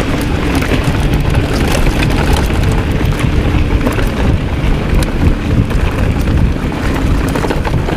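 Wind buffeting the microphone of a mountain bike's onboard camera during a ride on a dirt trail, with a steady low rumble from the tyres and frequent small rattles and clicks from the bike over the rough ground.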